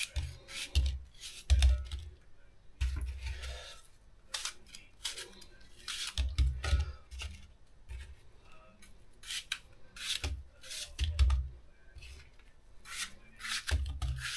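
Kitchen knife cutting crisp apple wedges into chunks in the hand: irregular sharp cutting clicks, with several low thumps between them.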